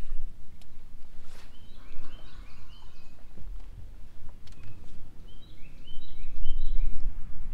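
Wind rumbling on the microphone, with a songbird giving two short songs of quick repeated chirping notes a few seconds apart, and a few light clicks.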